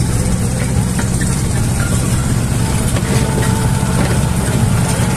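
Tractor engine running steadily, a loud low drone heard while riding behind it.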